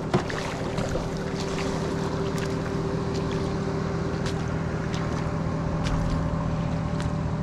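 Steady low hum of an idling engine, one even drone with a few faint clicks over it.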